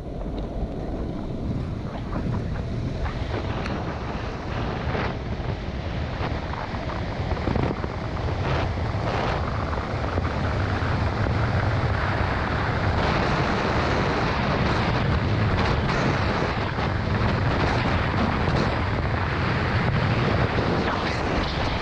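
Wind rushing over a helmet-mounted GoPro Hero 5's microphone, with wheels rolling on asphalt, during a fast downhill longboard run near 50 mph. The rush grows louder about eight seconds in and then holds steady, with occasional short ticks.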